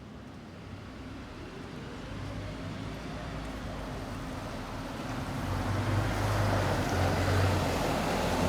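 City route bus pulling away from a stop, its engine getting louder as it accelerates, with a pitch that rises over the first few seconds.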